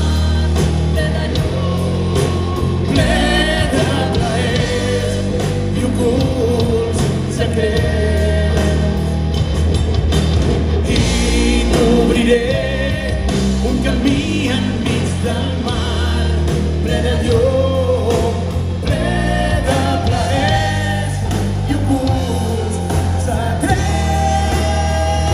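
Rock band playing live through a PA: electric guitar, electric bass and a drum kit, with the bassist singing lead.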